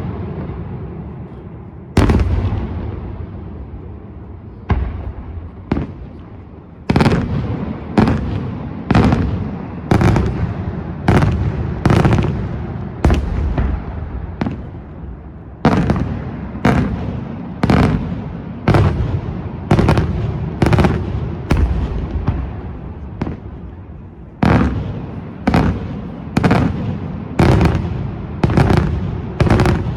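Daylight fireworks shells going off in a series of loud bangs, each followed by a rumbling tail. The bangs are a few seconds apart at first, then come about once a second for the rest of the time.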